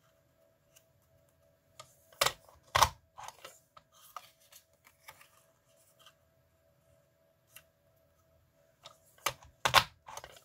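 Letter punch board being pressed to punch letters out of card: two pairs of sharp clacks, about two seconds in and again near the end, with lighter paper rustles and taps between.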